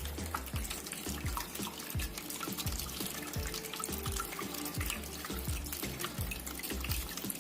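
Water from a small tabletop fountain trickling and splashing, with many drops plopping into the basin several times a second.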